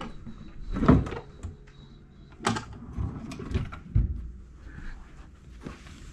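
A few knocks and clunks from a bedside-table drawer being handled, the loudest a dull thump about four seconds in.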